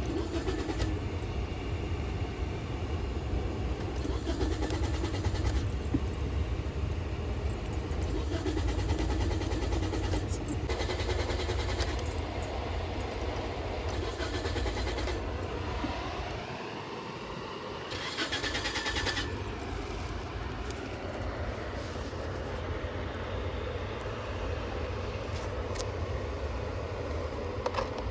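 A car engine being cranked by its starter in repeated attempts of a second or two each, without starting: the car won't start.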